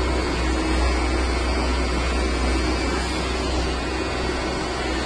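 Corded electric hair clippers running with a steady low hum while shaving the hair around the ear.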